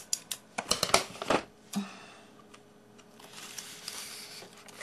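Scissors cutting into a polystyrene packing block: a quick run of sharp clicks and crunches in the first couple of seconds, then a fainter scraping hiss near the end.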